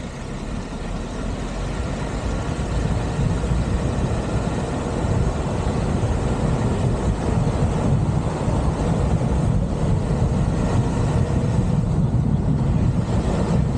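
Car driving along a road: steady low road and engine noise, growing louder over the first few seconds and then holding even.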